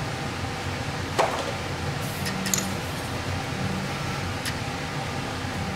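Steady room hum and hiss, with a sharp click about a second in and a few faint clicks and rustles from hands handling small plastic fill-valve parts and a paper measuring card.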